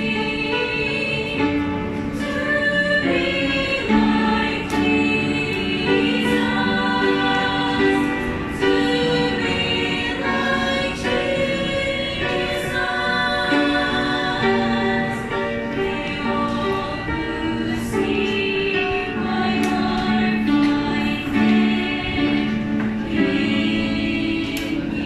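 A small youth choir of children and teenagers, mostly girls' voices, singing a gospel song together.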